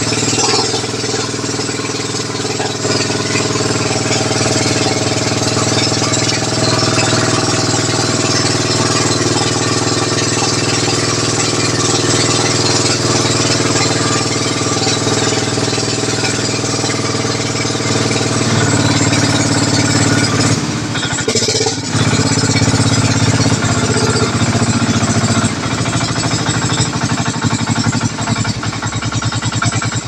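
Engine of a small motorized outrigger boat running steadily under way. About two-thirds of the way through its note shifts and briefly dips, then it runs on with a lower, heavier beat.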